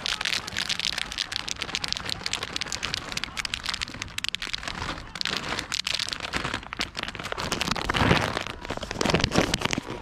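A plastic snack bag crinkling and rustling in a hand close to the microphone: a dense, continuous crackle, a little louder about eight seconds in.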